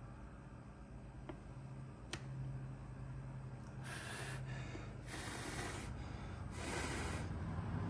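Three short puffs of breath blown onto a freshly melted-in welding staple to cool the plastic, over a low steady hum.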